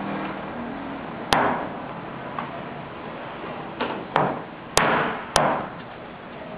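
A wooden spirit-writing planchette knocking on the table. There are five sharp knocks: one about a second in, then four in quick succession later on, roughly half a second apart.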